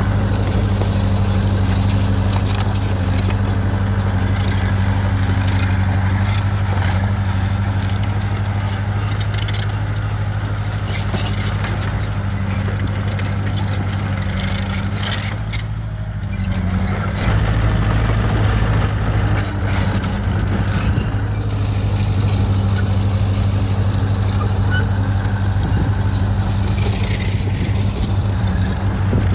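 Heavy earthmoving machine's engine running steadily, with a metallic rattling and clanking over it. The engine note dips briefly a little past the middle, then comes back.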